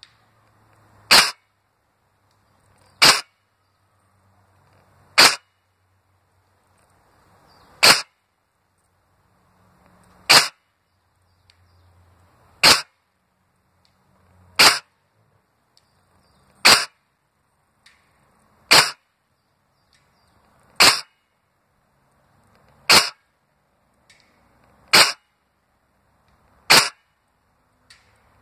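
Upgraded G&G GR25 airsoft electric rifle, tuned to about 1.5 joules, firing single shots of 0.36 g BBs. There are thirteen sharp cracks, roughly one every two seconds.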